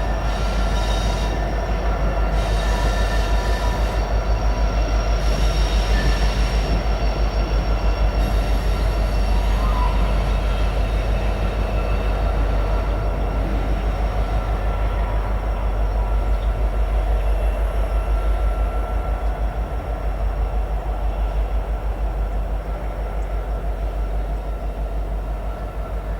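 Freight train of tank cars rolling past, a steady low rumble with a regular pulse from the wheels. A thin high wheel squeal rides over it and fades out through the second half.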